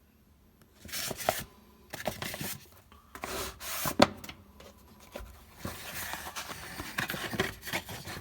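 A Snap-on ratchet and its packaging being handled: rubbing and rustling with scattered knocks and clicks, starting about a second in.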